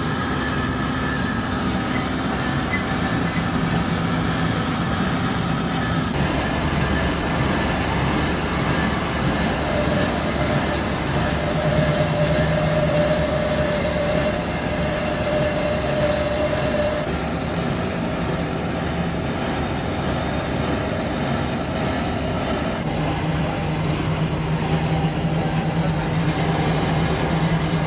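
Workshop machinery running steadily, a continuous mechanical noise with steady hums whose pitch changes a few times.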